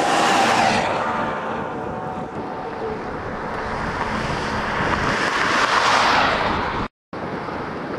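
Wind rushing over the microphone, with cars passing on the road; one passes louder, swelling around five to six seconds in. The sound cuts out for a moment about seven seconds in.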